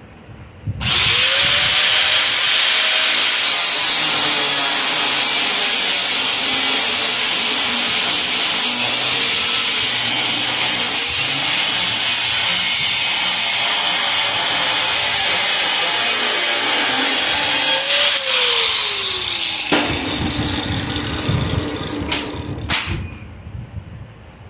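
Electric angle grinder starting up about a second in and grinding on the steel frame for about seventeen seconds, then winding down with a falling whine once released. Two sharp clicks follow near the end.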